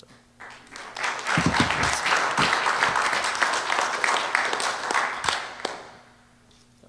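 Audience applauding: the clapping builds about a second in, holds for several seconds and dies away, with a couple of low thumps about a second and a half in.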